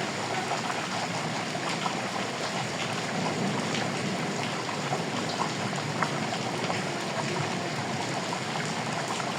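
Steady rain, a constant even hiss with many individual drops ticking through it.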